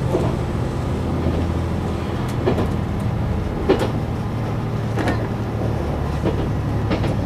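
KiHa 187 diesel railcar under way, heard from the cab: a steady diesel engine drone with wheels clacking over rail joints and points about every second and a half.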